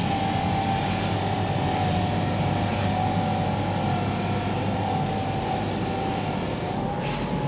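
Electric bench grinder running with an iron wire brush wheel, wire-brushing a sandblasted bolt. It gives a steady whine over rough scratching noise, and the whine dips slightly now and then.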